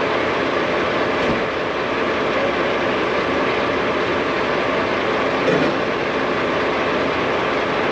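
Semi truck's diesel engine idling, a steady, unbroken running noise close by.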